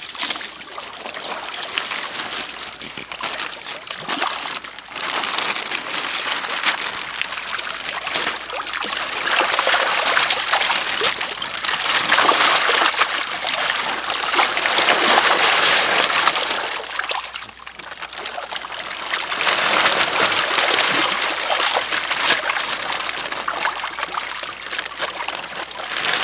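Pond water splashing and trickling as koi are netted out during a harvest, swelling and easing in waves.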